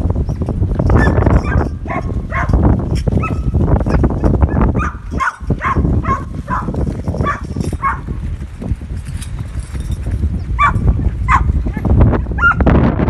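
A mob of Poll Dorset × Merino lambs on the move across a dirt yard: a dense rumble of many hooves, with a string of short animal calls over it from about a second in, pausing, then twice more near the end.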